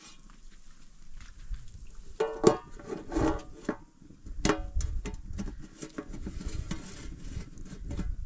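Metal cookware being handled, clanking irregularly several times with short ringing after each strike, over a low rumble.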